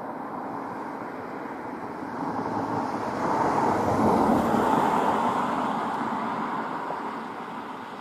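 A vehicle going by: a rush of noise that swells, peaks about four seconds in, and fades away.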